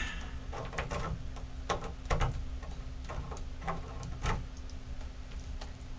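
Scattered light clicks and taps of small hard faucet parts being handled during reassembly of a shower faucet, about eight at irregular spacing, over a steady low hum.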